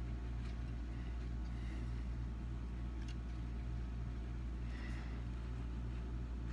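Steady low background hum with a faint click about three seconds in.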